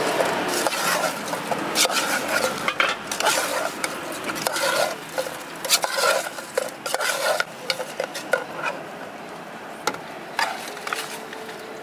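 Metal spoon scraping and clinking against an aluminium pot as fried squid is stirred and scooped, with irregular sharp knocks of metal on metal.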